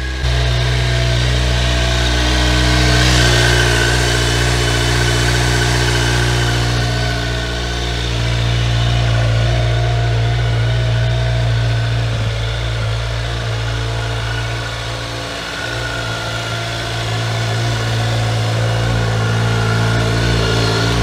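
Kawasaki Z900's 948 cc inline-four engine idling steadily.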